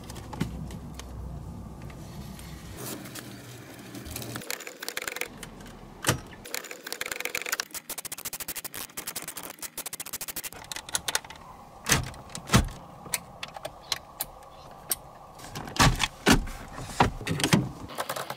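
Small clicks and rattles of work on a car's dashboard. A ratchet wrench clicks rapidly in the middle as the head unit is bolted back in. Several sharp knocks and snaps of plastic trim come near the end as the dashboard and console panels are pressed back into place.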